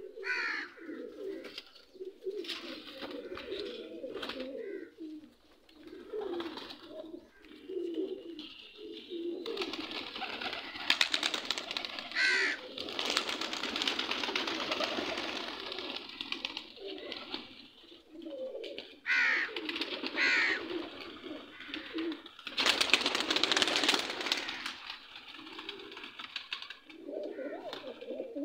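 A flock of domestic pigeons cooing over and over, with a few short higher chirps. Two long stretches of louder rustling wing flapping come in partway through and again near the end.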